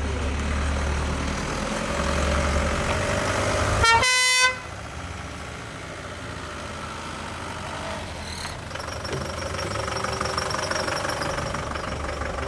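A vehicle horn sounds once, a single blast about half a second long, about four seconds in, over the running engine of an old van-based ambulance pulling away and driving on. The horn is the loudest sound.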